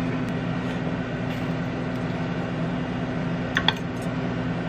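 Steady low hum of a running kitchen appliance, with two quick clicks of a metal utensil against a stainless steel skillet about three and a half seconds in.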